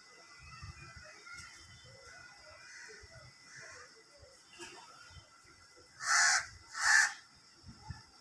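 Two short, harsh animal calls about a second apart, a little after six seconds in, over faint outdoor background.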